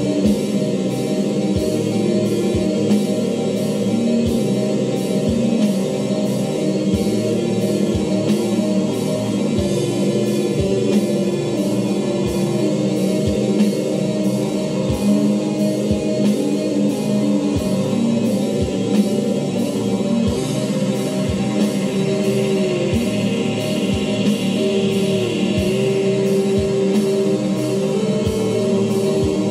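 Music with guitar and drum kit playing at a steady beat.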